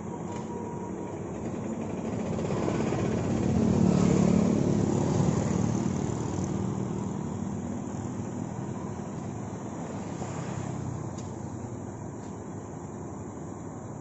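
Rainwater running steadily along a channel. A motor vehicle passes, building to loudest about four seconds in and fading away.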